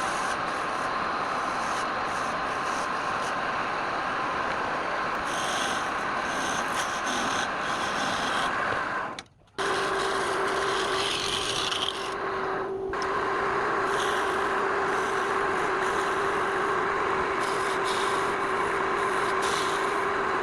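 Wood lathe running with a steady hum while a turning tool scrapes against the spinning workpiece. The sound cuts out briefly about nine seconds in; when it returns there is a lower steady tone under the scraping.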